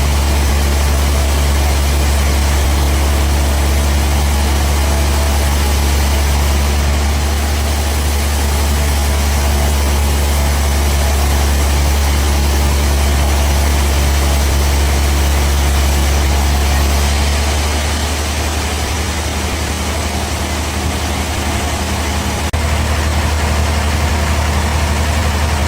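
Engine running steadily with a deep, even hum. The sound drops a little about 17 seconds in and picks up again about 22 seconds in.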